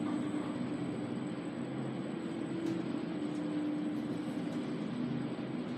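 Inside a Schindler 3300 lift car travelling down: a steady running hum with a constant low tone and the rushing of the car in the shaft.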